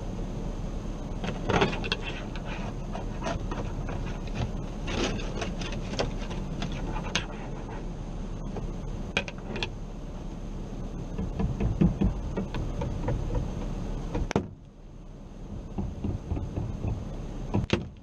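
Snow brush and ice scraper scraping and knocking on a car windshield, heard from inside the cabin, in a string of short strokes over a steady hum. The hum drops suddenly about two-thirds of the way through.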